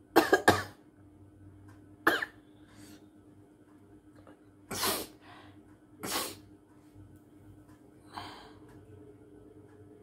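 A woman sneezing and coughing in about six short, sharp bursts: two in quick succession at the start, then one every second or two, the last one fainter.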